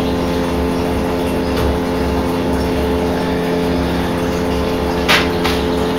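A submersible sump pump running with a steady hum in the bottom of a plastic barrel of sugar syrup, pumping it out through PVC pipe and a hose. A single short click comes about five seconds in.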